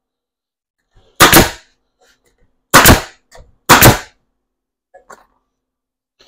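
Three loud, sharp bangs, each a short double hit, the first about a second in and the last two about a second apart, followed by a few faint clicks.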